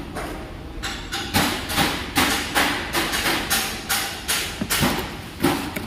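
Sharp knocks repeating two to three times a second, starting about a second in, like steady hammering.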